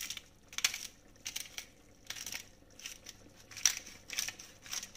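Hand-held black pepper grinder being twisted over a pan, grinding peppercorns in a series of short, gritty crunches about twice a second.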